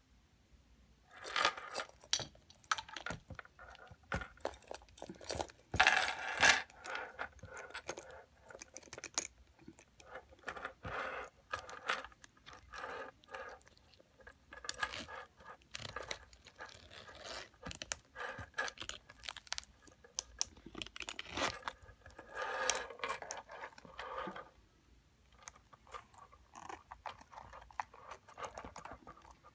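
Close-up handling of a red patent-leather Bebe handbag: its gold metal chain links clinking, long fingernails tapping and rubbing on the glossy surface, and its zipper being worked open. The sounds come as a run of sharp clicks and scratches, with a brief lull shortly before the end.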